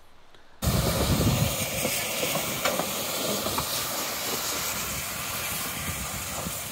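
Narrow-gauge steam locomotive 12A of Puffing Billy hissing steam, a steady hiss that starts abruptly about half a second in and is loudest at first.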